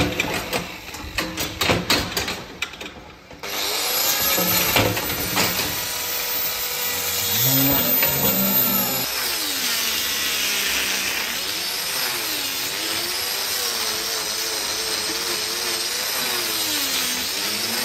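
Electric angle grinder with a hoof-trimming disc grinding a cow's hoof. After a few knocks it runs steadily from about three seconds in, its pitch dipping and rising again and again as the disc bites into the horn.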